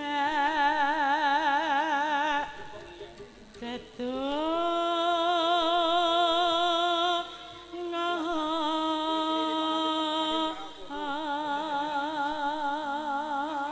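A sinden, a female Javanese gamelan singer, singing into a microphone: long held notes with a wide, even vibrato in three phrases, sliding upward into the second phrase about four seconds in.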